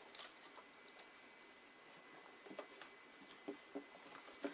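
Near-quiet room tone with faint scattered light taps and small clicks from hands working on craft materials, and a faint steady high-pitched whine underneath.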